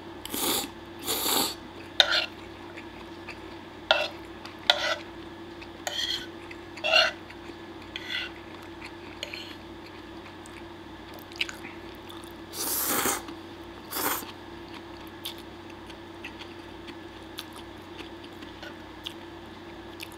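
A man slurping and chewing spaghetti peperoncino: a series of short slurps and mouth noises, with a longer slurp about thirteen seconds in. A faint steady hum runs underneath.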